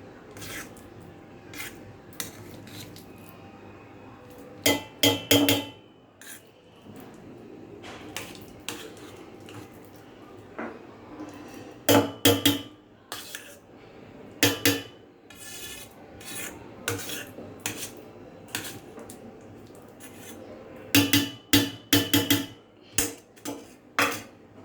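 Metal spoon and steel kitchen vessels clinking and scraping, in sharp knocks that come in clusters, the loudest about five, twelve and twenty-one seconds in, with softer rubbing between them.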